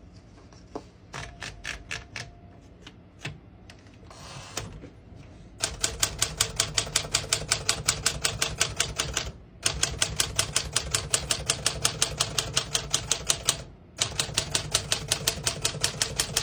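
1958 Smith-Corona Sterling manual portable typewriter. A few scattered key strikes, then steady, rapid typing at about five keystrokes a second, broken twice by brief pauses.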